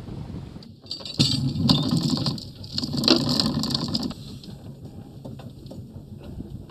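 Anchor chain rattling over the bow of a sailboat in two bursts of about a second each, then lighter clinks and knocks on deck.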